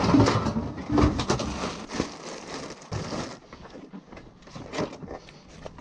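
Tools and gear clattering and knocking as they are handled in the back of a van: a dense clatter for the first three seconds or so, then a few scattered knocks.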